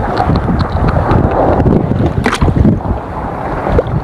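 Wind buffeting the microphone in a steady, gusty rumble, with one brief sharp click a little past the middle.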